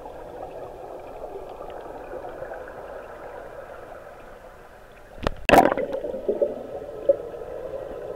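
Underwater swimming-pool sound picked up by a submerged camera: a steady muffled water hum, then about five seconds in a loud sudden rush of air bubbles close to the microphone, bubbling on for about a second and a half.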